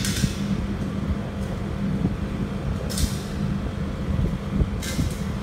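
Panasonic CU-PV24SKH air conditioner outdoor unit running with a steady low hum during R410A recharging. Three short hisses cut across it, at the start, about three seconds in and near the end.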